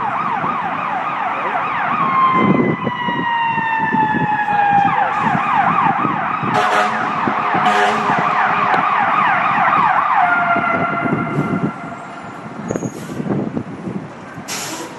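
Several emergency vehicle sirens sounding at once, fast up-and-down sweeps overlapping with long tones that slide slowly down in pitch. A few sharp pops cut through. The sirens fade about twelve seconds in.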